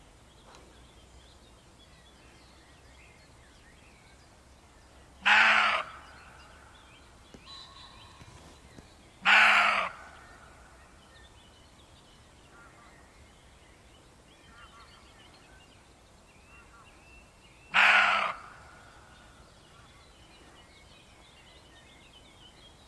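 A deer calling three times, each a short, loud call of about half a second, the second about four seconds after the first and the third about eight seconds later, over faint birdsong.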